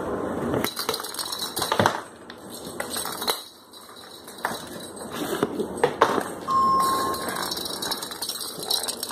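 A hollow plastic cat-toy ball clattering and clicking across a hardwood floor as a kitten bats and chases it, with irregular sharp knocks and clinks. A short steady tone sounds about two-thirds of the way through.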